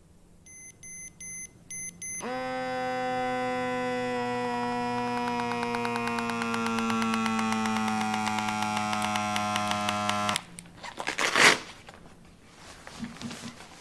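Several quick electronic beeps growing louder, then a loud, steady buzzing electronic tone with many overtones that holds for about eight seconds and cuts off suddenly. About a second and a half after it stops comes a short ripping sound of velcro tearing.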